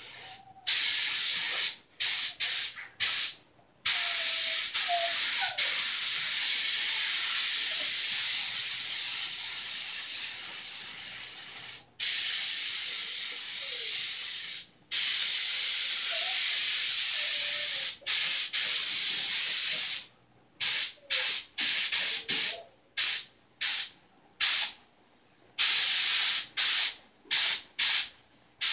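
Gravity-feed spray gun hissing as it sprays clear coat, in long passes of several seconds that start and stop sharply. In the last third it turns into a quick run of short trigger pulls, about two a second.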